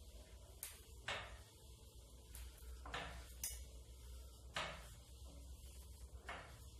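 Manual tube roller bending a galvanized steel tube into a ring, worked by hand: sharp metallic clicks and clanks, about seven, unevenly spaced a half second to a second and a half apart, over a faint low hum.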